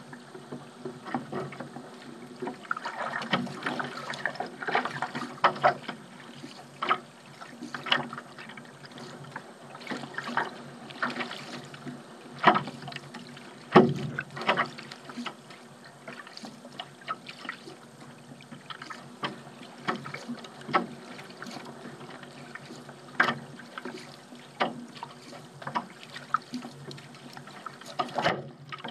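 Paddle strokes in the water: splashing and dripping about once a second, with a few sharper knocks and splashes near the middle.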